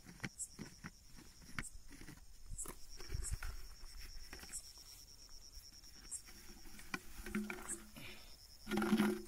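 Glass jar handled on gravelly ground: the lid is unscrewed and the jar tipped over to let a snake out, giving scattered clicks, knocks and scrapes. A steady high cricket trill runs underneath, and a short low sound comes near the end.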